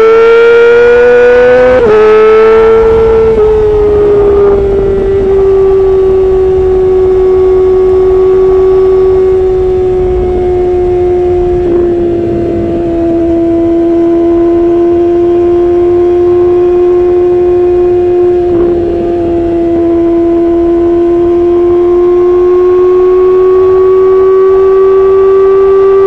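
Yamaha R6's inline-four engine through an Akrapovic Evolution racing exhaust, revving up over the first two seconds, then holding a steady high-revving note with slight dips in pitch.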